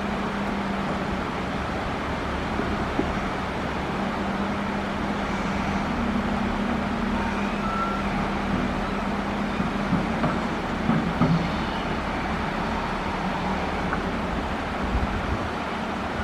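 Excavator's diesel engine running steadily under load, with a few knocks about ten and fifteen seconds in.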